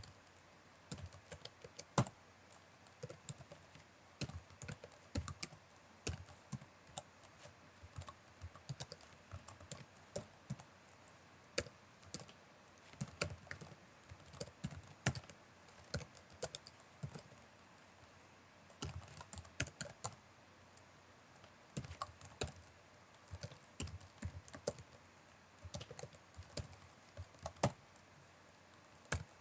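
Typing on a computer keyboard: quick irregular runs of key clicks with brief pauses between bursts.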